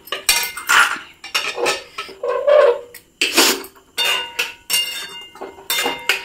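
A spoon stirring a masala in a cooking pan, knocking and scraping against the pan in irregular clinks about two a second, each with a short metallic ring.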